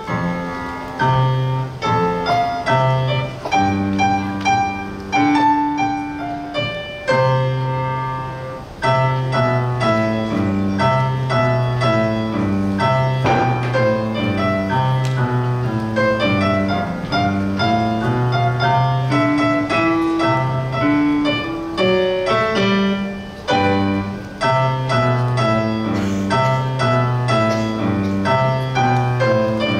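Piano being played: a melody of quick notes over a recurring low bass line.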